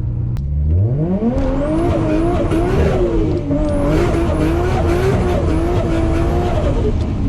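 Built 550 hp RB25DET turbocharged straight-six revving hard. Its pitch climbs steeply from low revs in about a second, then holds high and wavers for about five seconds. It drops back near the end.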